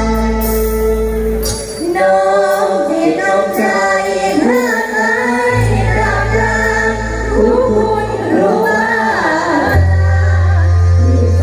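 Amplified mor lam stage music: sustained keyboard chords and bass, joined about two seconds in by a singer's wavering, ornamented vocal line.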